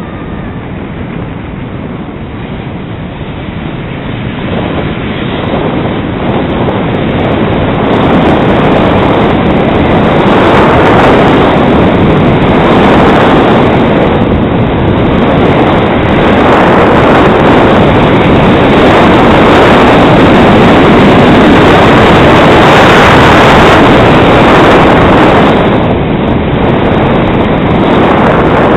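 Wind rushing over a skier's camera microphone on a downhill run, mixed with the hiss of skis on snow; it builds over the first several seconds, then holds loud with slow swells.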